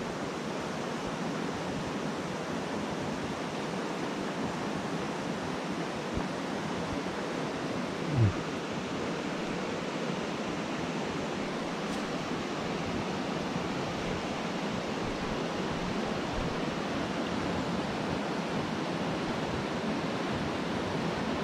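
Steady rush of a rocky mountain stream flowing through riffles. About eight seconds in there is one brief low thump.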